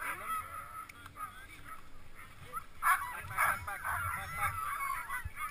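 A team of sled dogs yelping and howling together in a dense chorus of wavering cries, the excited noise of dogs harnessed and eager to run; the cries get louder about halfway through.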